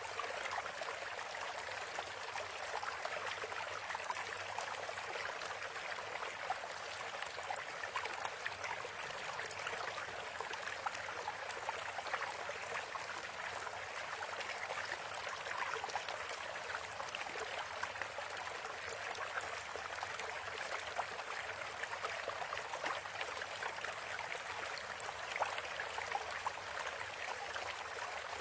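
Steady rushing, trickling noise like a flowing stream, unbroken and even in level.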